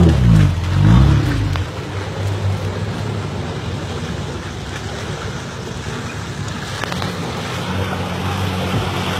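Toyota 4x4 pickup's engine revving, its pitch rising and falling in the first second, then running steadily under load as the truck works through deep mud, with a steady rushing noise.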